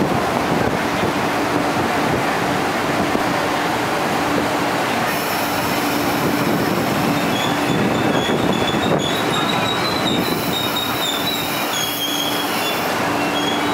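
MTR East Rail Line electric multiple unit running into the platform and braking to a stop, with a steady rumble of wheels on rail. From about halfway through until near the end it gives a high, wavering squeal as it brakes.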